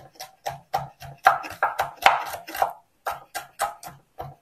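Chef's knife mincing garlic on a mango-wood cutting board: quick repeated chops of the blade onto the wood, about four a second, with a brief pause about three quarters of the way through.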